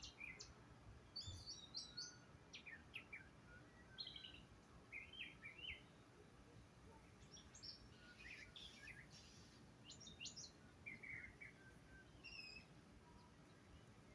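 Songbirds chirping faintly: short clusters of quick high chirps, with a new cluster every second or so.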